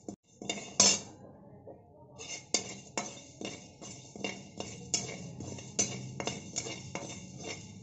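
Slotted metal spatula scraping and knocking against a dry aluminium kadai as a few lentils are stirred, one loud knock about a second in, then regular strokes about two or three a second.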